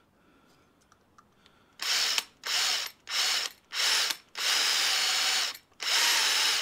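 Metabo LTX Impuls cordless drill drilling out a pop rivet, in about six short trigger bursts of steady motor whine starting about two seconds in, one of them longer near the end.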